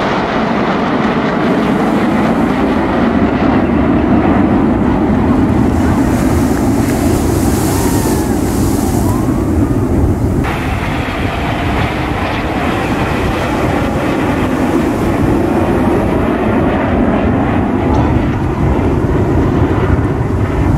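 Steady roar of a formation of BAE Hawk T1 jet trainers, each with a single Adour turbofan, flying overhead. A higher hiss swells in the first half, and the sound changes abruptly about halfway through.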